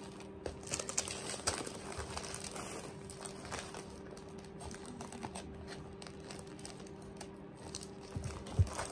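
Clear plastic wrapping on gingerbread house kit pieces crinkling as hands handle and pull at it, in many small irregular crackles over a faint steady low hum. A light thump comes near the end.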